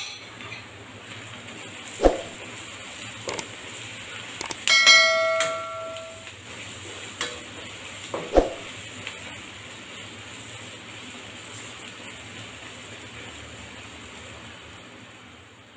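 Marinated anchovies sizzling in hot sesame oil in a wok, with a few knocks of the spatula against the pan. About five seconds in comes one ringing metal clang that dies away over about a second.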